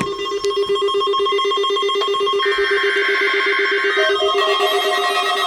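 Several weather radio receivers sounding their alert alarms together for a weekly test. A rapid pulsing beep sits under other steady and beeping tones, and more alarm tones join about two and a half and four seconds in.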